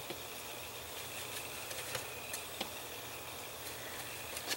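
Faint scattered clicks and taps of small plastic plugs being pressed into holes in a plastic model leg, over steady low room noise, with a quick cluster of clicks near the end.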